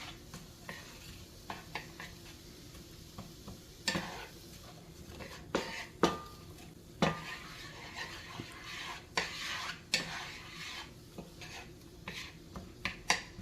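A spoon stirring sautéing food in a frying pan: irregular knocks and scrapes against the pan over a faint sizzle.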